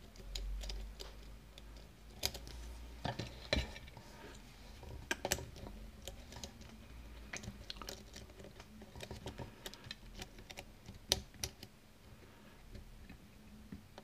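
Faint, irregular metallic clicks and scrapes of a steep hook pick probing the pin stacks of a five-pin euro cylinder lock while tension is held on the plug, feeling each pin for looseness or binding.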